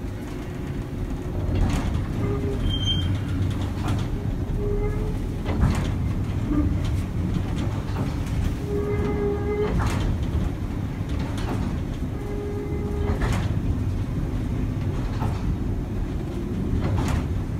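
Baltimore Air-Electric PCC streetcar No. 7407 running along its track, heard from the operator's cab. Under a steady low rumble of motors and wheels there is a click every second or two as the wheels pass rail joints, and a brief hum now and then.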